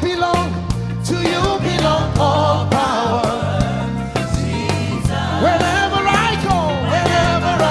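Live gospel worship band playing with singing: bass and drums keep a steady groove while voices sing gliding melodic lines over it.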